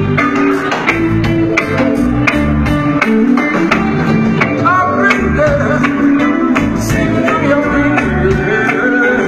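Live band music: guitar over a steady drum beat and bass line.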